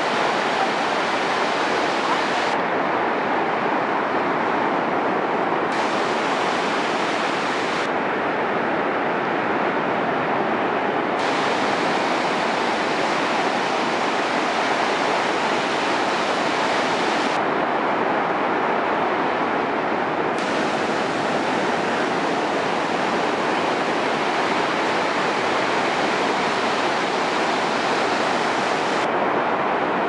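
Ocean surf washing onto a sandy beach: a steady, unbroken rush of breaking waves.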